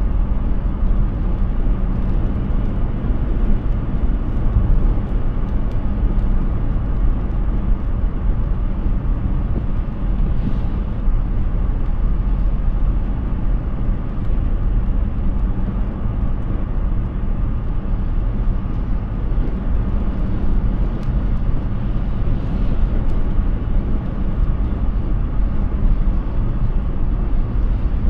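Steady road and wind noise from a Hyundai Ioniq 6 electric car driving at speed: an even rumble of tyres on the road, with no engine note.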